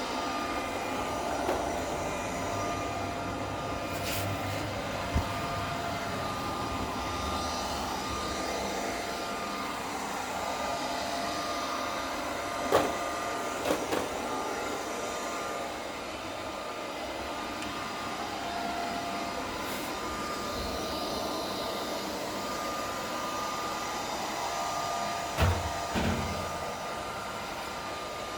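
Roomba robot vacuum running with a steady whirr and a faint whine, broken by a few short knocks, the loudest about halfway through and near the end.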